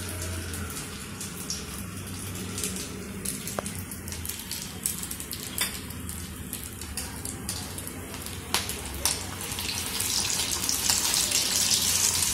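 Paneer cheese balls deep-frying in hot oil in a steel kadai on a low flame: a steady sizzle and bubbling with scattered sharp pops and crackles, growing louder over the last couple of seconds.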